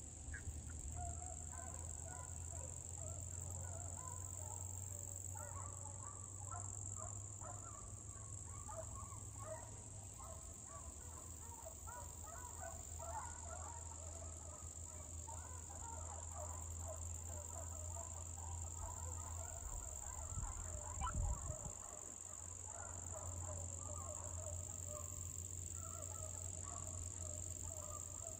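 A pack of hunting hounds baying and yelping in the distance, a faint, steady chorus of overlapping calls as the dogs run a deer through the woods. A brief low rumble, likely wind or handling on the microphone, comes about three-quarters of the way through.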